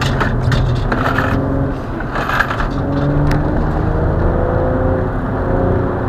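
Car engine heard from inside the cabin, its pitch climbing steadily as the car accelerates, with bursts of rushing noise in the first couple of seconds.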